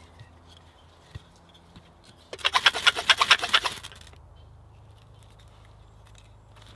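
A knife shaving wood, carving curls for a feather stick: a rapid run of scraping strokes, about nine a second, that starts a little after two seconds in and stops within two seconds.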